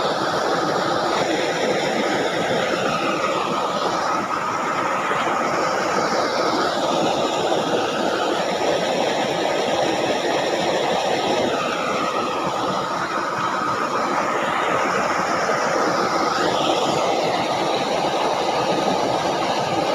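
Steady rushing of water flowing along a shallow ditch, a continuous hiss with slowly sweeping shifts in tone.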